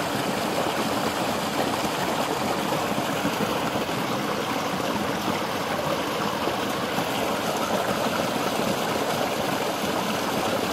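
Water pouring steadily from a chute onto the paddles of a homemade water wheel and splashing into the creek below: an even rush with no breaks.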